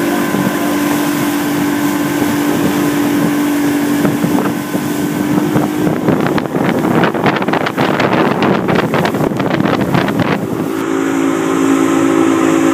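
Motorboat engine running steadily at towing speed, a steady hum under the rush of wind and water. From about six to ten seconds in, a louder crackling rush of wind buffeting the microphone covers the engine.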